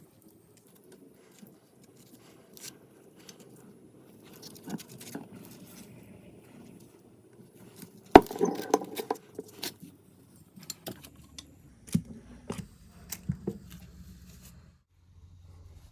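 Metal parts of an old, rusty bullet reloading tool being handled: scattered clinks and scrapes, with one loud metallic clank about eight seconds in.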